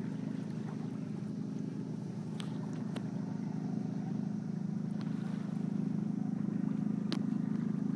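Steady low drone aboard a MacGregor 26M sailboat under sail, growing slightly louder in the second half, with a few faint ticks.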